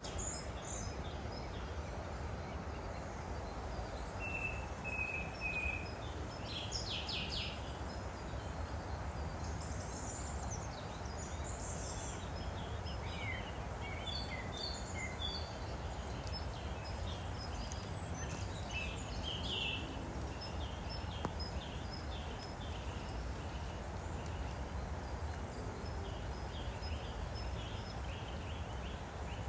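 A woodland stream flowing steadily, with songbirds chirping and singing on and off over it.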